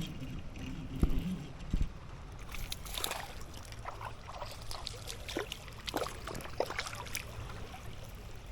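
Water sloshing and trickling, with two heavy low thumps about a second in and then a scatter of short sharp clicks and splashes.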